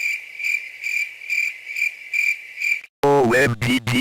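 Crickets chirping sound effect: a steady high chirp pulsing about twice a second, standing for an awkward silence. It cuts off about three seconds in, and a synthesized voice starts speaking.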